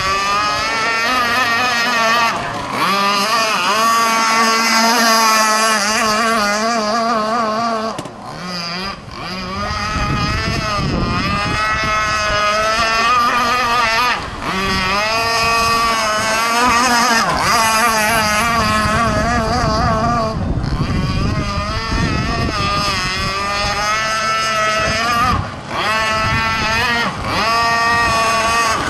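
Gas-powered RC hydroplane boat running at speed, its small two-stroke engine's pitch rising and falling with throttle and distance, briefly dropping off several times.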